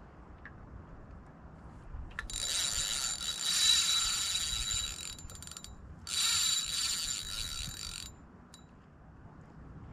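Spinning reel's drag buzzing as a hooked fish strips line against the bent rod, in two runs: a long one about two seconds in and a shorter one about six seconds in. The angler thinks the fish is a pike.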